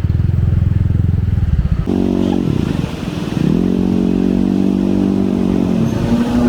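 A small vehicle engine running: at first a low, rapid putter, then a pitched drone that drops and rises again twice as it revs down and up.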